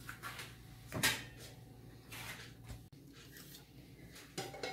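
A few light knocks and clatters of an aluminium steamer tier being handled and set into its pot, the loudest knock about a second in.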